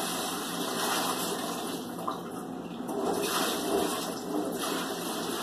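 Kitchen sink faucet running, water splashing into the sink, the splashing swelling and easing as things are moved under the stream.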